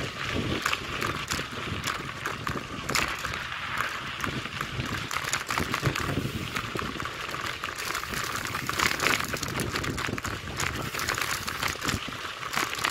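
Mountain bike rolling along a loose dirt-and-gravel road: steady tyre and air noise with frequent small clicks and rattles from the bike over the rough surface.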